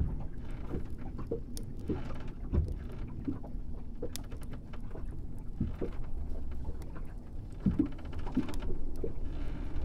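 Ship ambience: a steady low rumble with scattered short creaks and knocks, like the timbers of a wooden boat working.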